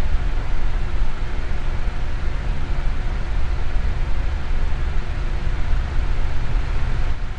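Electric fan running steadily: an even rush of air, heaviest in the low end, with a faint steady hum.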